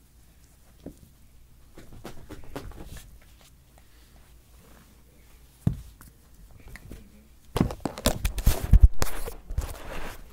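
Light scuffling on a carpeted floor with a single sharp knock in the middle. Then, in the last few seconds, loud rustling and scraping right against the microphone as the phone on the floor is bumped or handled.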